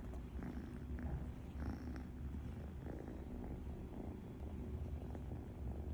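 A sleeping cat snoring: a continuous low rumble that swells slightly and eases off again.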